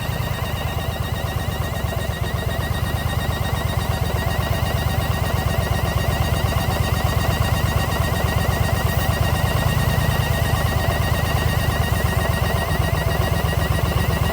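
Yamaha XV950 Bolt's air-cooled V-twin idling steadily with an even low pulse, and a light chirp repeating in time with it higher up: the abnormal noise of an intake manifold air leak.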